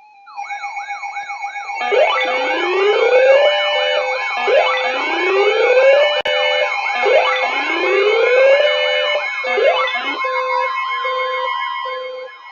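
Several electronic emergency-vehicle sirens sounding together. A fast yelp-like tone wobbles up and down about twice a second throughout. From about two seconds in, slow wails rise over and over, roughly every two and a half seconds, alongside steady tones. The wails stop near the end while the yelping carries on more quietly.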